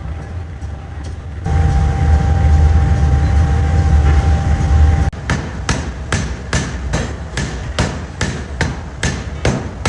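A pneumatic forging hammer runs with a loud low drone and a steady tone. About five seconds in it begins striking rapidly and evenly, about two and a half blows a second, on 304 stainless steel.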